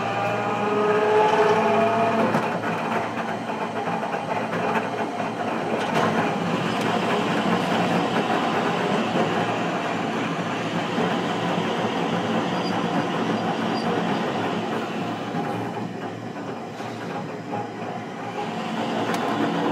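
Hiroden 700 series tram car heard from inside the car while running. In the first couple of seconds a motor whine rises in pitch as it picks up speed. After that comes a steady rumble and rattle of wheels on rail, which eases for a few seconds near the end.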